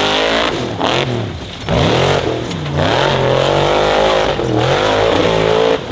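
Formula Offroad hill-climb buggy's engine revving hard, its pitch rising and falling several times with brief dips between the bursts of throttle.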